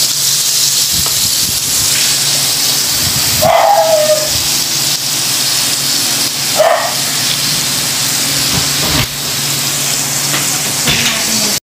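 Slices of pork and beef sizzling on an electric tabletop grill: a steady frying hiss with a low hum underneath. Two short high-pitched cries cut through, about three and a half and six and a half seconds in.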